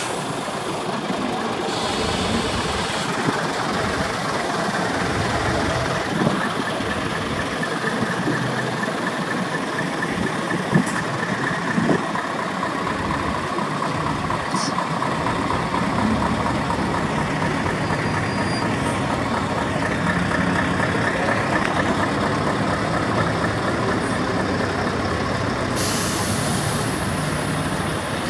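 Heavy Scania truck diesel engines running as the trucks roll slowly past one after another. A hiss of air brakes starts near the end.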